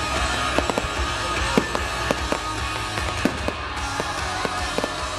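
Aerial firework shells bursting and crackling, about a dozen sharp reports at irregular intervals, with music playing steadily underneath.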